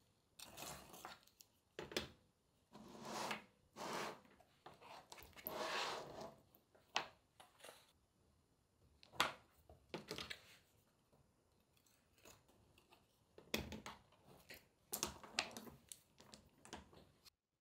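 Utility knife cutting through the mesh backing of a stone mosaic tile sheet in a series of strokes. Later, small stone tiles click and knock against each other and the cutting mat as the cut strips are handled.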